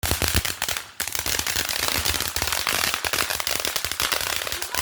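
Fireworks firing a rapid string of sharp bangs and crackles, many per second. There is a brief lull about a second in, and the bangs stop just at the end.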